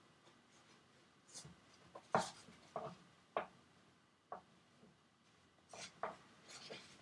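Stiff primed canvas crinkling and scraping as it is gripped with canvas stretching pliers and pulled over a wooden stretcher bar, in a series of short, separate scrapes.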